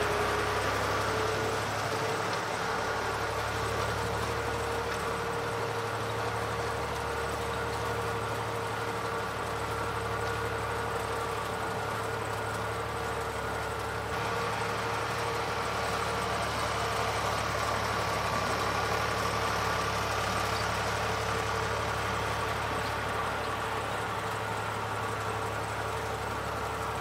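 Diesel farm tractor engine running steadily as it pulls a tillage implement through a field of cotton plants, with a slight change in tone about halfway through.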